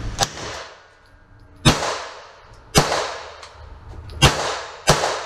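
Five shots from a semi-automatic pistol, unevenly spaced about a second apart, each shot ringing on in the echo of an indoor shooting range.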